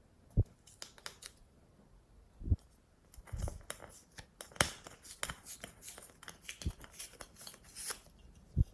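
Glossy slime being worked by hand, giving a dense run of sticky clicks and crackles, with a few low thumps as it is pressed or slapped.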